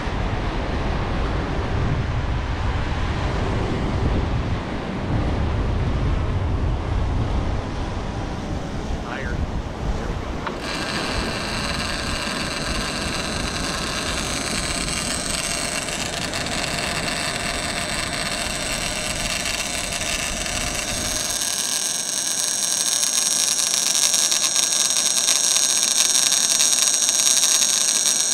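Wind buffeting the microphone over breaking surf. From about ten seconds in, a steady high whine of several tones joins it, the fishing drone's propellers, and it grows stronger near the end as the wind rumble drops away.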